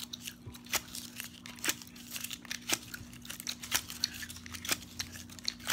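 Tape being peeled and torn off in pieces and handled close to the microphone: crinkling and tearing with sharp clicks, the strongest about once a second.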